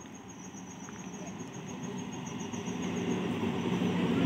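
A train approaching, its rumble growing steadily louder, with crickets chirping faintly that fade out under it.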